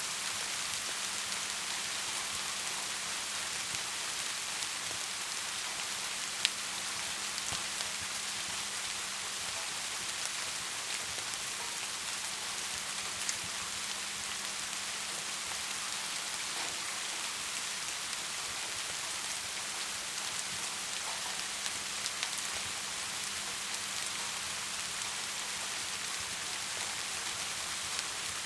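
Steady rain hiss with a wood fire crackling, a few sharper pops standing out, the loudest about six seconds in. A faint low steady hum runs underneath.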